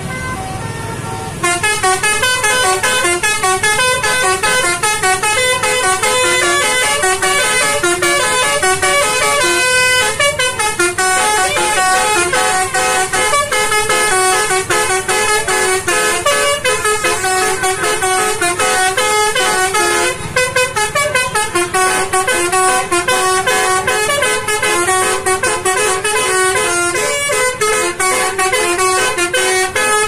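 A bus's basuri telolet horn, a set of electric trumpet horns, playing a fast, loud melody of quickly changing notes. It starts about a second and a half in and plays almost without a break, with a brief dip about two thirds of the way through.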